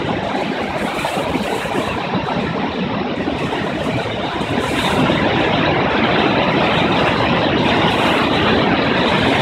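Loud, steady rush of whitewater pouring through the open sluices of a dam and churning below it.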